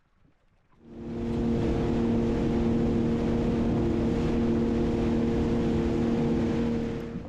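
A motor runs at a steady, unchanging pitch. It starts about a second in and cuts off abruptly near the end.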